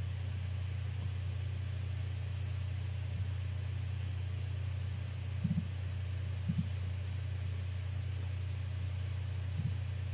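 Three dull thumps of a hammer crimper being struck to crimp a heavy battery-cable lug: two about a second apart in the middle, a third some three seconds later. A steady low hum runs underneath.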